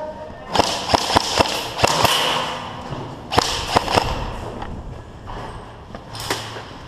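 Airsoft guns firing single shots, sharp snaps and knocks in an irregular string: a quick cluster early, two more a little after three seconds in, and a last one near the end.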